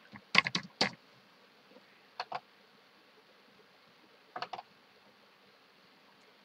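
Computer keyboard keystrokes and mouse clicks: a quick run of about five strokes in the first second, then two clicks around two seconds in and a short cluster of three a little after four seconds.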